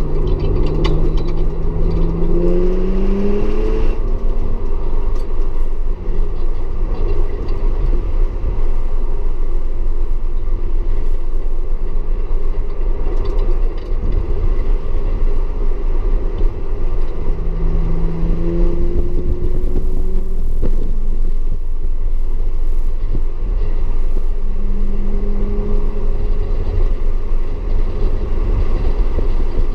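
Audi S4 engine running hard on a wet race track, its note rising as it accelerates at the start and twice more later, under a constant heavy low rumble of road and wind noise.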